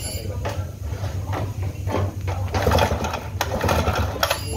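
Knocks and scraping as the heavy Stihl 070 chainsaw powerhead is turned over and shifted on a steel workbench, busiest in the second half.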